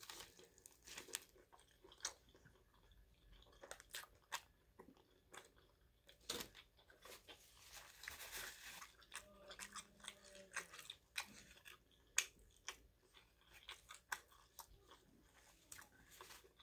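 Faint, close-miked chewing of a soft, sauce-soaked pastrami sandwich: scattered wet mouth clicks and smacks, with a short rustle of a napkin wiping the mouth about eight seconds in.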